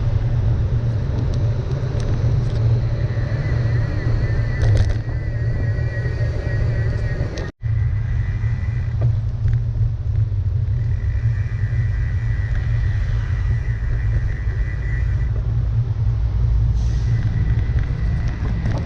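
Road traffic: cars driving past a pedestrian crossing, a steady heavy low rumble, cut off briefly about seven and a half seconds in.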